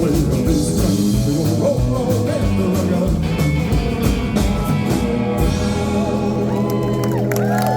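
Live rock and roll band with vocals and guitar playing the final bars of a song. The drums stop about five seconds in and the band holds a final ringing chord as the crowd starts to whoop near the end.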